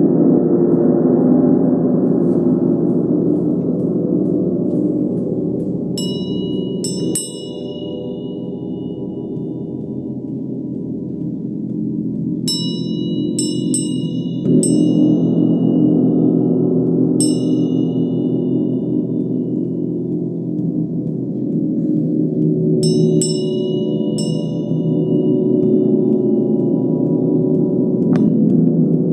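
40-inch Mother Tesla gong played continuously with a felt mallet, a dense shimmering drone that softens after about seven seconds and swells again halfway through. Over it a small brass hand bell rings in short bright clusters, about four times.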